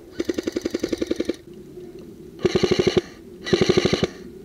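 Airsoft G3 replica rifle firing three full-auto bursts, a rapid even rattle of about a dozen shots a second. The first burst lasts about a second; two shorter bursts of about half a second follow.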